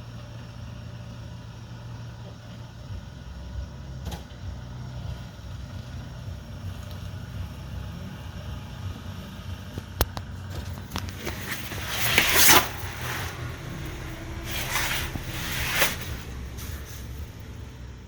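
A car's engine running low and steady, with a sharp click about ten seconds in and two louder rushing noises around twelve and fifteen seconds.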